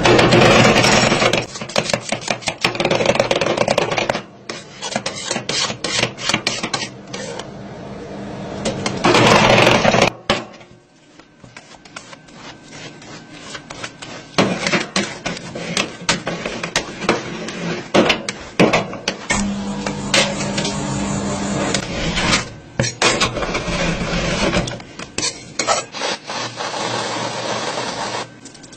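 Metal spatulas on the frozen steel pan of a rolled ice cream maker: sharp taps and clicks of the blades chopping the watermelon ice cream mix, with stretches of rasping scraping as it is spread and scraped across the cold metal. The scraping is loudest at the start and again about nine seconds in, and quieter for a while after that.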